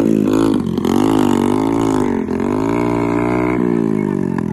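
Motorcycle engine revving, its pitch rising and falling again and again as it strains under load, towing another motorcycle out of the mud on a rope.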